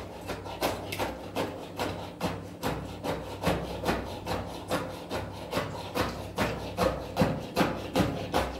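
Repeated rubbing strokes in a steady rhythm, about two or three a second.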